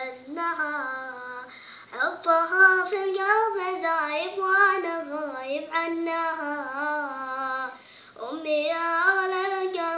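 A child singing an Arabic song unaccompanied: one voice holding long, ornamented notes that glide up and down, with brief pauses for breath about two seconds in and near eight seconds.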